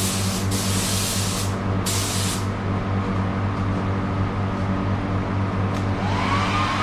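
Paint spray gun hissing in three short bursts over the first couple of seconds while paint is sprayed on a car bumper, then stopping, over a steady low hum. A faint rising whistle comes in near the end.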